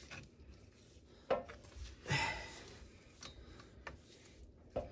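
Faint metal clicks and clinks from a wrench and socket tightening the nuts on the driveshaft flange studs. There is one sharp click about a second in, a short scrape a little later, then a few fainter ticks.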